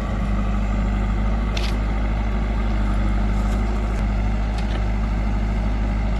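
Heavy diesel engine of farm machinery running steadily at low revs, with a brief light click about one and a half seconds in.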